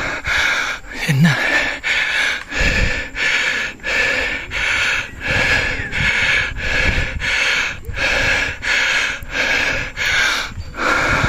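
A cyclist breathing hard and fast, loud rhythmic puffs at about three every two seconds, from the effort of pedalling up a steep hill.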